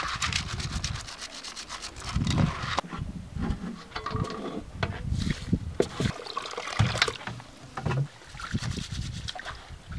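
Hands rubbing and scrubbing in a metal basin of water to wash rice, with uneven scraping, clicks and small splashes against the metal.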